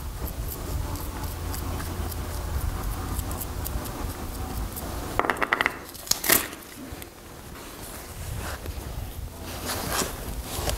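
A blue nitrile glove is peeled off a hand: a quick run of crackling about five seconds in, then a sharp rubbery snap, followed by light handling ticks. A steady low rumble lies under it.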